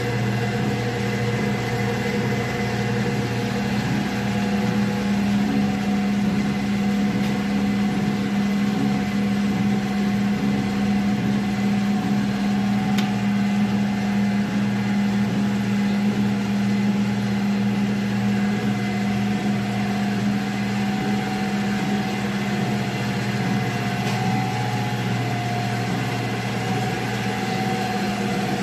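Hydraulic oil press running steadily: its electric motor and hydraulic pump give a constant low hum while the press squeezes cocoa butter out.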